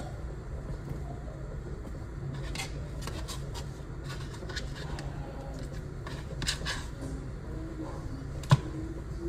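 Kitchen knife slicing fresh mozzarella on a cutting board: a handful of light, scattered taps, the sharpest near the end, over a steady low hum.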